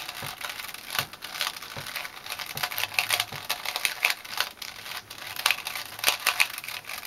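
Rapid, irregular clicking and clacking of a cheap plastic Rubik's cube as its layers are turned quickly by hand in solving. It is a low-quality cube that the solver says won't turn very fast.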